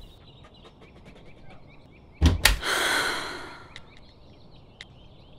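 A door shutting with two quick thuds about two seconds in, followed by a hissing sound that fades over about two seconds. Faint high chirps in the background.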